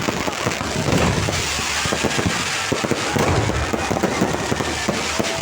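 Fireworks going off in a dense, unbroken string of cracks.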